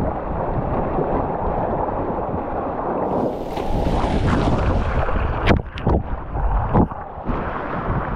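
Wind buffeting the microphone over the rush of rough, choppy sea splashing against a Hobie Tandem Island sail kayak's hull. About three seconds in, a wave surges over the low-mounted camera with a fizzing splash, followed by a few sharp knocks.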